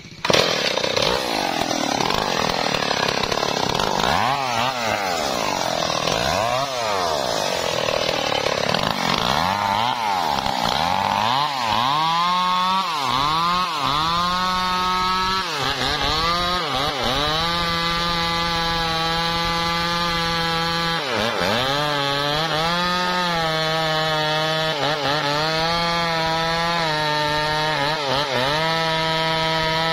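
Stihl MS 381 two-stroke chainsaw cutting into the base of a teak trunk at high revs. The engine revs up and down unevenly for the first several seconds, then holds a steady high pitch that dips and recovers several times.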